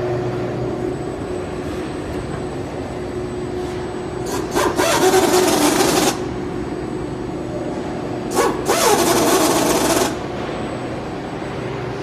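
CNC router machinery running with a steady hum, broken twice by a loud rushing noise about two seconds long, first about four seconds in and again about eight seconds in.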